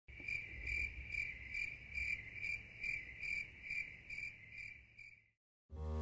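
Insect chirping: a high, clear note pulsed evenly about twice a second, stopping about five seconds in.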